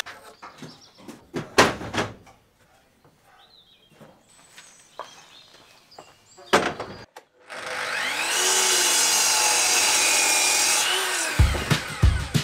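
Knocks and scrapes as a wooden beam is handled and laid on the saw. About eight seconds in, a sliding miter saw spins up, runs steadily through the cut for about three seconds and winds down. A drum beat of background music starts near the end.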